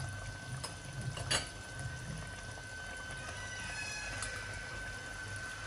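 Tomato chicken curry gravy simmering in a pot on the stove, a soft steady bubbling, with one light click about a second in.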